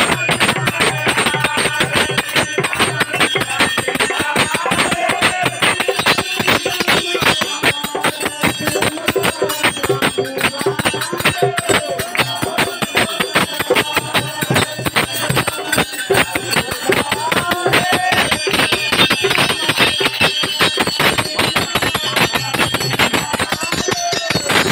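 Devotional group singing over a bell rung rapidly and without a break, typical of an aarti at a Satyanarayan puja.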